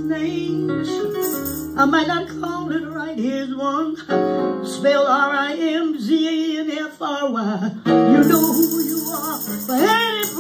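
A woman singing a gospel song over keyboard and guitar accompaniment; a high jingling joins about eight seconds in.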